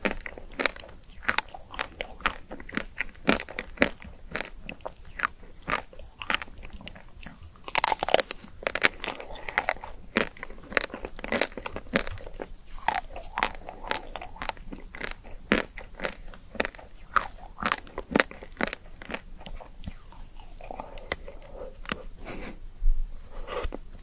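Close-miked biting and chewing of a crisp pink chocolate-coated ice cream bar: sharp crunches and crackles of the coating throughout, with a dense run of crunching about eight seconds in.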